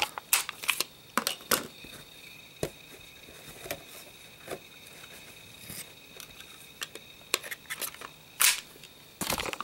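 Scattered clicks and light knocks from a subcompact .45 pistol and a spare magazine being handled, about a dozen over the stretch, with a faint steady high whine behind them.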